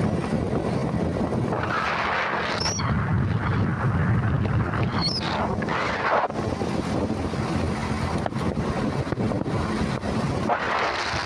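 A vehicle driving along a road: steady engine hum and road noise, with wind buffeting the microphone and a few louder swells.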